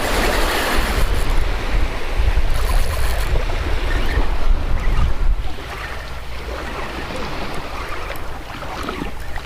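Ocean surf breaking on the beach, a wave crashing right at the start, with wind buffeting the microphone until about halfway through, when it eases.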